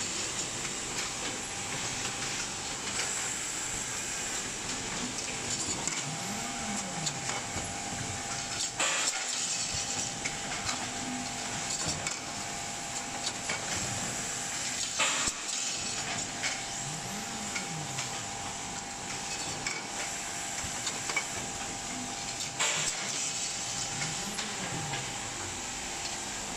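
Insulin syringe assembly machine running: a steady mechanical noise with a sharp clack about every six to seven seconds as the pressing station cycles.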